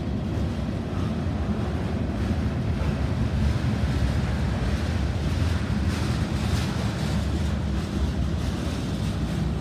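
Freight cars rolling past close by: a steady low rumble of steel wheels on the rails, mixed with wind on the microphone.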